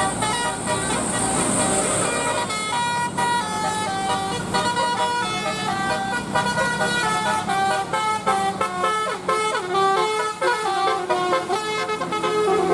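Bus 'telolet basuri' multi-tone horn playing a quick melody of held notes that step rapidly from pitch to pitch, over the steady hum of the bus's engine.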